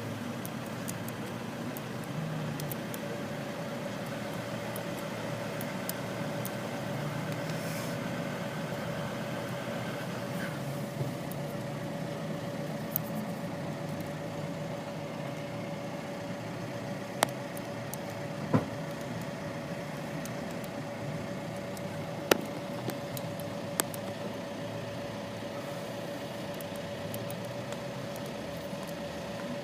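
A steady mechanical hum with one constant pitch, like an engine or motor idling, with a few sharp clicks in the second half.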